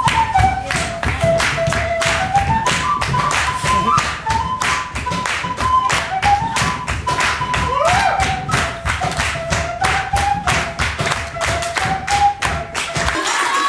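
Traditional Bolivian auqui auqui rhythm: quick, even drum strokes under a flute melody of steady held notes. The drumming stops just before the end.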